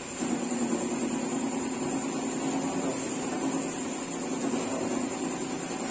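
An engine running steadily at idle: an even hum that holds one speed throughout.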